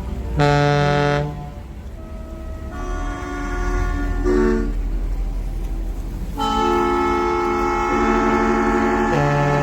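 Boat horns sounding in a harbour: a loud blast about half a second in, weaker overlapping tones, then a long multi-note blast from about six seconds in that carries on.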